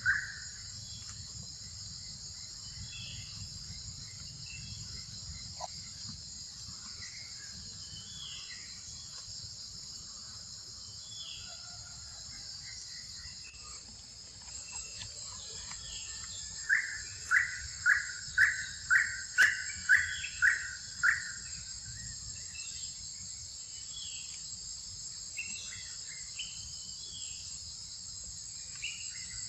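A steady, high insect chorus with scattered short bird chirps. About halfway through, a run of about eight loud, evenly spaced calls comes at roughly two a second, then stops.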